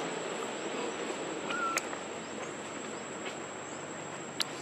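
Outdoor forest ambience: a steady high-pitched insect drone over a soft background hiss. A short chirp comes about a second and a half in, and a sharp click near the end.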